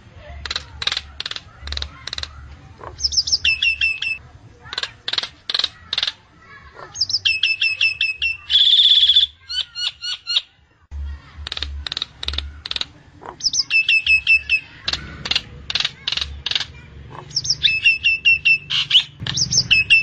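Common myna calling: quick runs of short, sharp clicking notes alternate with chattering phrases that drop onto a repeated note, and there is one harsh grating call about nine seconds in.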